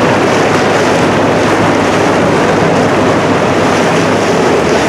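Steady rush of wind on the microphone and of water against the hull of a boat under way, with the boat's motor running underneath as a low hum.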